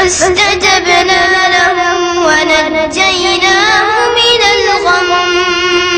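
A child's voice reciting the Quran in the melodic tilawah style, carrying one long ornamented phrase without a break; the pitch wavers throughout and rises briefly near the middle before settling back.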